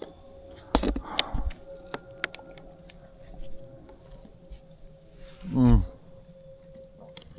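Steady high-pitched insect buzzing, with a few knocks in the first second and a half and a person's groan falling steeply in pitch a little past halfway.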